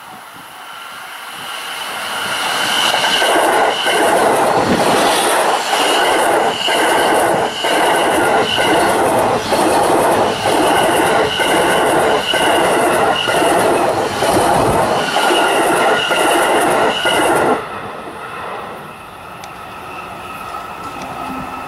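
Electric commuter train passing close by at speed. The rail noise builds over about three seconds into a steady loud rush with a beat about once a second as each car goes by, and a high whine rides over it. Near the end the noise drops off suddenly as the last car passes, then fades away.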